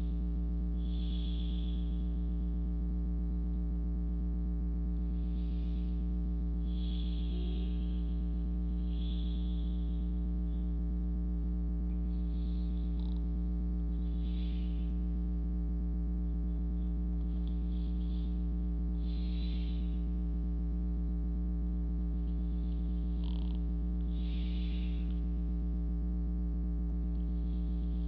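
Slow, soft breathing close to the microphone, one breath every couple of seconds, over a louder steady low hum.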